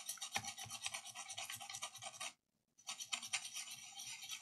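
A brush scrubbing a liquid-damaged laptop motherboard, making rapid scratchy strokes to clean off the residue. The strokes stop briefly a little over two seconds in, then start again.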